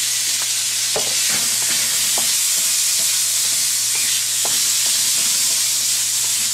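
Bite-sized seasoned chicken pieces frying in hot oil in a wok: a steady sizzle with a few scattered sharp clicks.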